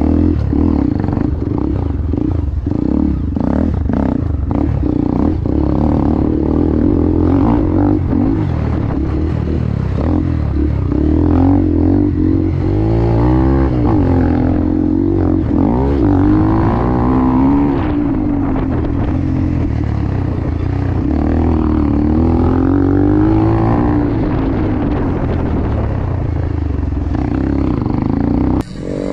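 Hero XPulse 200 motorcycle's single-cylinder engine heard from on board while riding a dirt trail. The revs rise and fall again and again as the throttle is worked. Knocks and rattles come through over the first several seconds, and the sound cuts off abruptly near the end.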